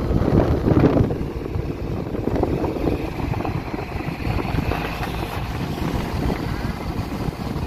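Engine of a wooden river ferry boat running steadily while the boat is underway; the boat is fitted with a car-type engine. Wind buffets the microphone over the engine noise.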